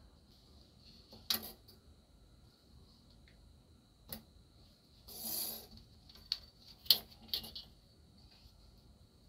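Scattered light clicks and knocks of small metal parts being handled, with a short scraping rustle about five seconds in, over a faint steady high hiss.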